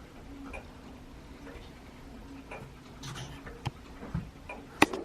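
A clock ticking steadily, about once a second, with the sharpest, loudest tick near the end.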